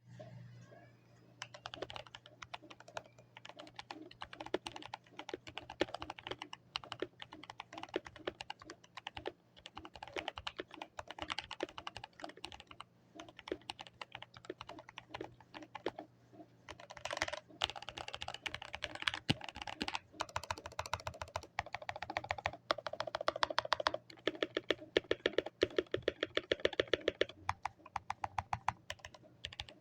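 Redragon Lakshmi mechanical keyboard with lubed Outemu Brown tactile switches, tape-modded and foam-dampened, being typed on. The keystrokes come in bursts with short pauses and grow faster and denser in the second half. A faint steady low hum sits underneath.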